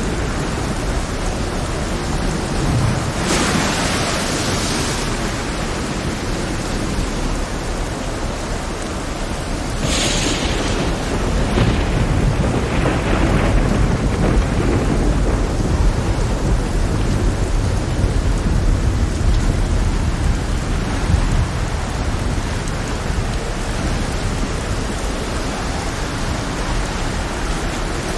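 Heavy rain falling steadily, with thunder: a crack about three seconds in, another sharp crack about ten seconds in, then rolling rumble for several seconds after.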